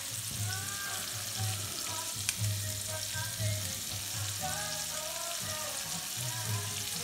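Scallops searing in hot butter and olive oil in a pan, a steady sizzle, with one sharp click about two seconds in. Music with a steady low beat plays underneath.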